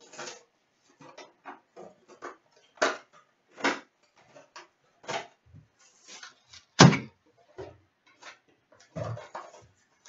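Handling noises from opening a sealed trading-card hobby box: a string of short rustles, taps and clicks of cardboard and plastic wrap, with one sharp knock, the loudest sound, about seven seconds in.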